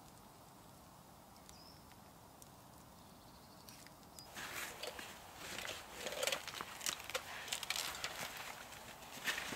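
Quiet woodland background with a couple of faint high chirps, then a little over four seconds in, footsteps crunching and rustling through dry leaf litter and twigs, getting louder.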